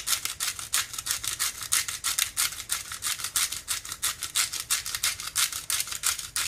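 Hand pepper mill being twisted steadily, grinding peppercorns with a fast, even run of crisp scraping clicks, about six or seven a second.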